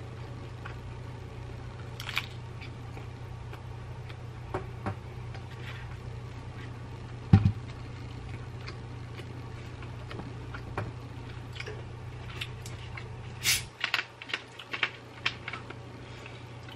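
Quiet eating sounds over a steady low hum, with a few soft isolated knocks and one louder thump about seven seconds in. Near the end, after the hum drops away, a quick run of sharp clicks and crackles as a plastic soda bottle is handled and its cap twisted off.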